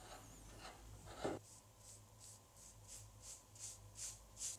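A single knock about a second in, then short rhythmic rubbing strokes by hand on a workpiece. The strokes come about three a second and grow louder.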